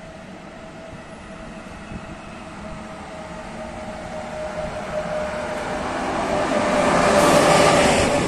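ČD class 371 electric locomotive hauling a passenger train, approaching and passing close by. The sound grows steadily louder over a steady whine, peaking in a rush of noise as the locomotive goes past near the end, then the coaches roll by.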